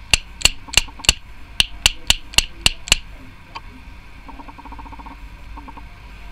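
Sharp, even taps, about ten of them at roughly three a second, stopping about three seconds in: a rebuilt bottom coil head for an EVOD/Protank clearomiser being tapped so its top post seats fully in the base.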